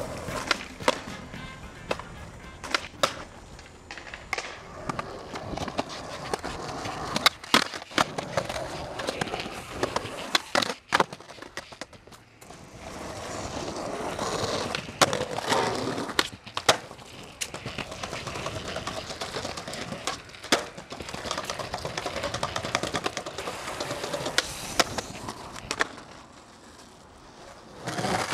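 Skateboarding on concrete: wheels rolling, with many sharp clacks of boards popping and landing at irregular intervals, over background music.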